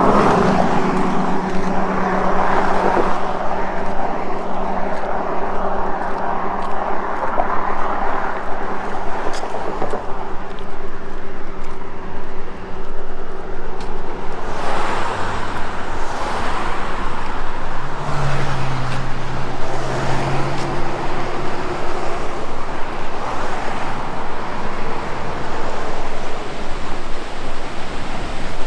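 Steady, loud roar of rushing gorge water, with low steady hums running through it that shift to a lower pitch about halfway through.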